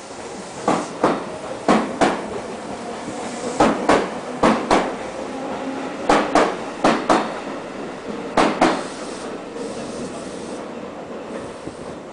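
Seibu Railway electric commuter train pulling out of the station, its wheels knocking in quick pairs (the two axles of each bogie) over a rail joint, the pairs coming a little closer together as the train gathers speed. The knocks stop about nine seconds in as the last car passes, leaving a fainter running rumble.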